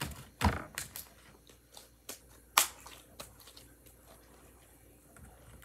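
Pink clear slime being squeezed and stretched in the hands, giving a handful of sharp clicks and pops over the first three seconds, then going faint.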